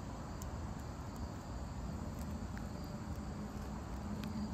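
Insects chirping steadily in the background, over a low rumble, with a few faint clicks as a small dog chews a treat. A low steady hum comes in near the end.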